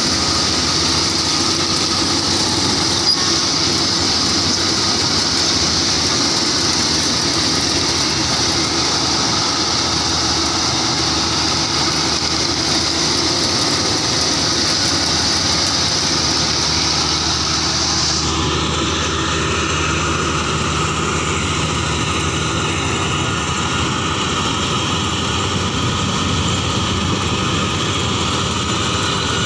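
Kubota DC-35 rice combine harvester running steadily while cutting and threshing rice, its engine and threshing gear making one continuous mechanical noise. About 18 seconds in the high hiss drops away suddenly and the lower engine sound comes forward.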